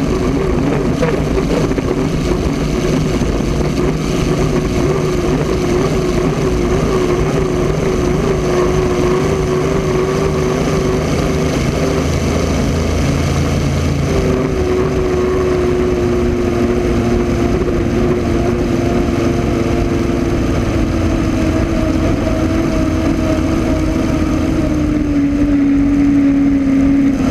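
1980 Miss Budweiser unlimited hydroplane's Rolls-Royce Griffon V12 aero engine running hard on the water, heard from on board. Partway through the engine note steps, then its pitch falls steadily as the boat eases off, dropping again near the end.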